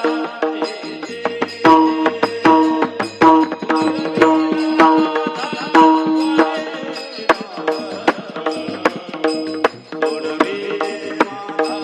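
Instrumental devotional kirtan music: a melody of held notes over regular drum strokes, with no singing.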